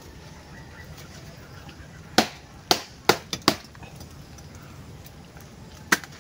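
Machete chopping at bamboo stems: a quick run of five sharp chops about two seconds in, then one more near the end.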